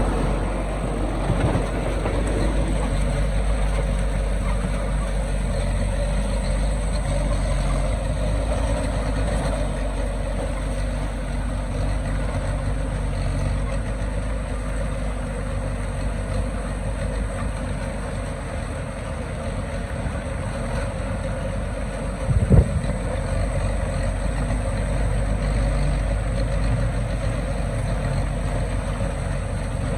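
Heavy diesel engine of earthmoving machinery running steadily, with a single sharp knock about three-quarters of the way through.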